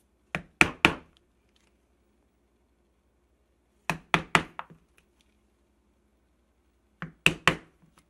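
A mallet striking a punch through leather, in three quick bursts of three or four sharp knocks each: about a second in, about four seconds in, and about seven seconds in.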